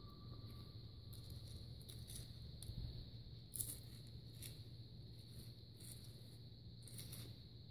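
Faint scattered clicks and light rustles of a pistol being handled and shooting sticks being adjusted, over a steady high-pitched drone.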